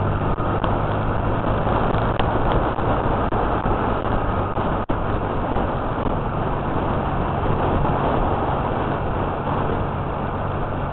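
Motorcycle riding at speed heard from an onboard camera: wind rushing over the microphone over a steady low engine hum. The sound drops out for an instant about halfway.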